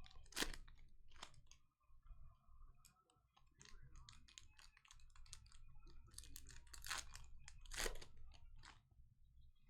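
Trading cards and foil pack wrappers being handled: scattered soft rustles and clicks, with a few louder sharp scrapes about half a second in and again around seven and eight seconds in.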